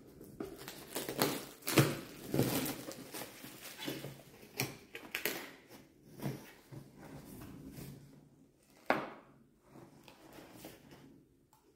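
Cardboard product box being opened by hand: irregular rustling and scraping of cardboard and packaging, with sharp clicks and knocks, the loudest about two seconds in and another about nine seconds in.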